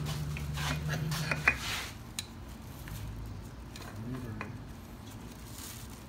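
Hand-tightening a spin-on oil filter onto the engine: scattered sharp clicks and knocks of hands and the metal canister, the loudest about a second and a half in, with brief rustling of a plastic bag. A low steady hum runs underneath and stops about a second and a half in.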